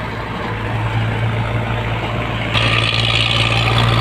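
Tractor diesel engines running steadily with a deep, even hum. About two and a half seconds in, the sound gets louder and harsher.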